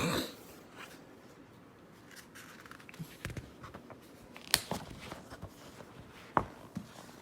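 Quiet handling of a picture book's paper pages: faint rustling with a few sharp clicks and taps, the loudest about four and a half and six and a half seconds in.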